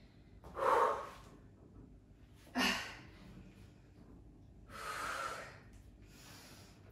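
A woman breathing hard from exertion, with three forceful exhales about two seconds apart and a fainter breath near the end.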